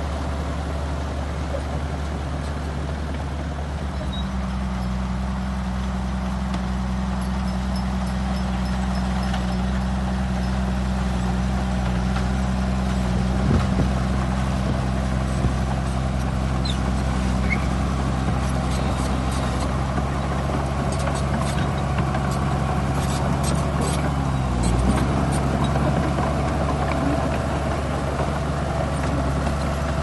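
Crawler bulldozer's diesel engine running steadily under load while pushing soil, a low, even drone. About 25 seconds in its pitch dips briefly and then recovers.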